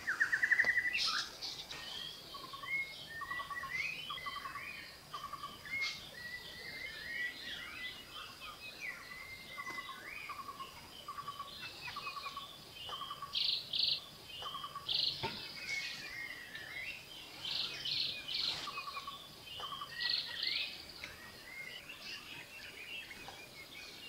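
A mixed chorus of many different forest bird species calling over one another: repeated short trilled notes, chirps and whistles, with a buzzy rising call at the very start the loudest. A faint steady high whine runs underneath.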